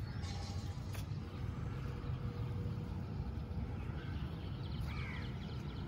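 Steady low outdoor background rumble, with a few faint bird chirps and a short call about four to five seconds in.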